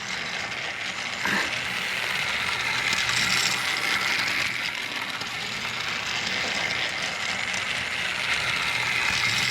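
Battery-powered TrackMaster Thomas toy engine running around plastic track, its small motor and gears giving a steady, high whirring rattle.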